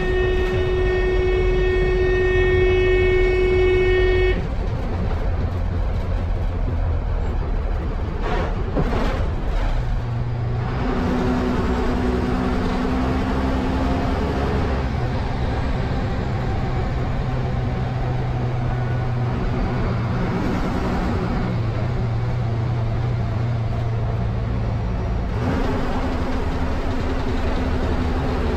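Bus horn sounding one long steady blast for about the first four seconds, heard from inside the front of the bus. After that, the bus engine runs as it drives, its note stepping in pitch a few times, with a few short knocks about eight to ten seconds in.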